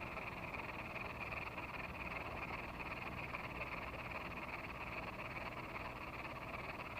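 A chorus of frogs calling steadily from the flooded rice paddy, a dense continuous high trill with no breaks.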